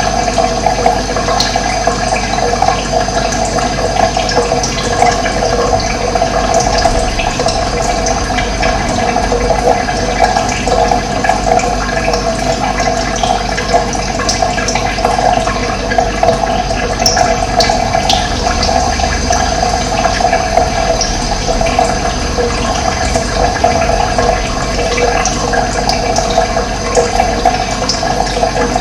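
Running water rushing steadily and loudly, with occasional short bird chirps above it.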